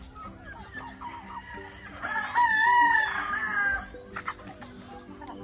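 A rooster crows once, a long loud call of about a second and a half starting about two seconds in. Hens cluck softly around it.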